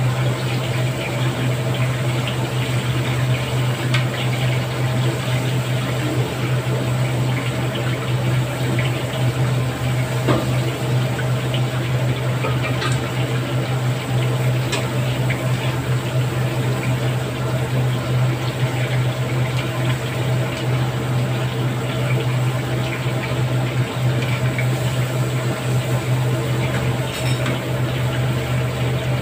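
Chicken pieces deep-frying in a wok of hot oil, sizzling and bubbling steadily, with a few clicks of metal tongs against the wok. A constant low hum runs underneath.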